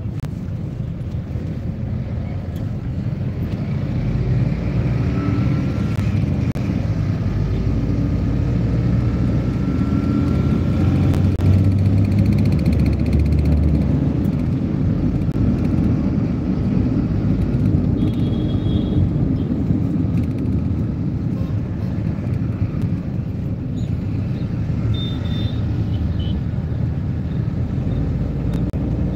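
Steady low rumble of street traffic and a moving vehicle's engine and road noise, a little louder in the first half, with a few faint brief high tones later on.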